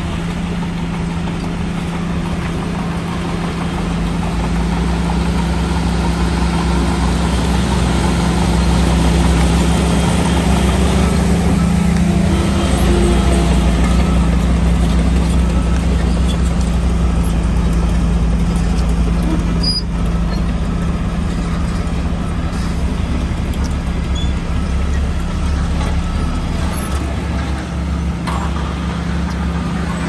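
Shantui DH17 bulldozer's diesel engine running steadily under working load, a loud continuous drone. It grows louder and deeper about four seconds in, then eases slightly in the second half.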